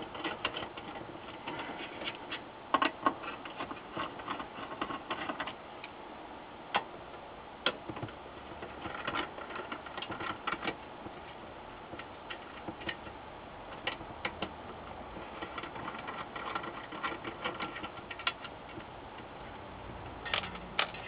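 Irregular light clicks and taps of a hand screwdriver turning small screws out of a monitor's metal chassis, some in quick runs of clicks.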